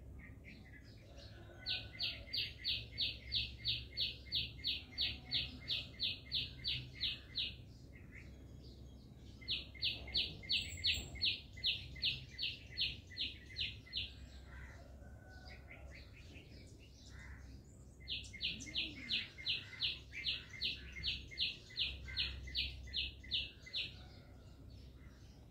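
A bird calling in three long bouts of rapid, evenly repeated high chirps, about four a second, each bout lasting some five seconds with short pauses between.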